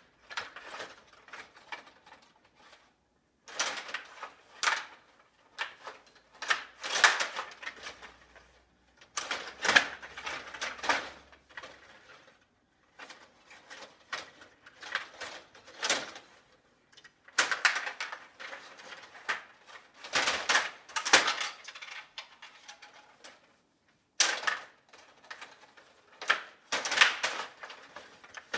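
Stiga Play Off table hockey game in fast play: the control rods clattering as they are twisted and pushed, and the puck clicking against the plastic players and boards. It comes in irregular flurries of rapid clicks and knocks, with short lulls between them.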